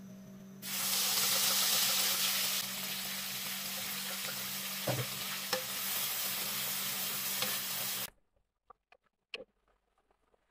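Blended chili paste (sambal) sizzling as it hits hot oil in a nonstick wok. It starts suddenly and is loudest for the first couple of seconds, then settles to a steadier, softer frying hiss while a wooden spatula stirs it and knocks against the pan a few times. It cuts off suddenly about eight seconds in.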